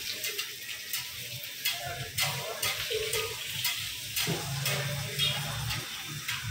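Restaurant kitchen noise: a steady hiss of food frying with many quick clinks of dishes and utensils. A low steady hum joins about four seconds in.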